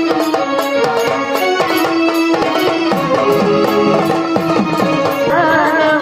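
Instrumental passage of Marathi gondhal folk music: an electronic organ plays a held, ornamented melody over steady drumming. Near the end a wavering, pitch-bending melodic line comes in.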